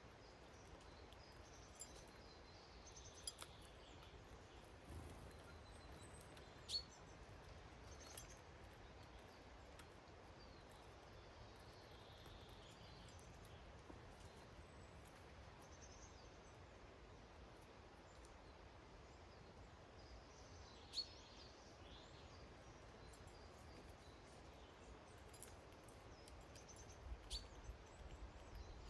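Quiet garden with faint, distant bird calls now and then, and a few sharp clicks or ticks.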